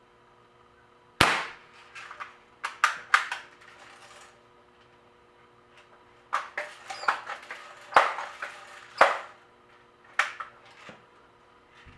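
Crosman Remington R1100 multi-pump pneumatic air rifle being worked and fired: a sharp crack about a second in, followed by a string of clicks and knocks from the action. A second run of clicks follows, with two more loud cracks in the middle and a few lighter knocks near the end.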